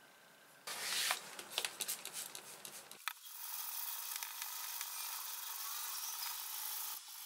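Fine sandpaper rubbed by hand along a copper-plated steel knife blade, taking the copper off the flat of the blade so that it stays only in the etched lines. Scratchy rubbing with small clicks starts about a second in, then settles into a steady, even hiss from about three seconds.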